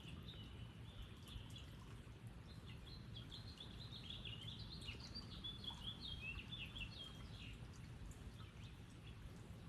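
A small songbird singing a quick twittering phrase of high chirps, strongest from a few seconds in until near the end, over a faint low rumble of outdoor background.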